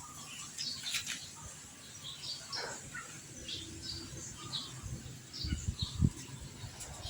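Small birds chirping repeatedly in short high calls, with a click about a second in and a few dull knocks around five to six seconds in, from handling the motorcycle engine's clutch-side cover.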